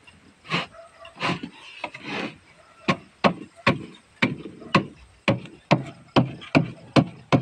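Plywood scraping a few times as a wooden divider is slid into a plywood box, then sharp knocks on the wood, two to three a second, as it is knocked into position.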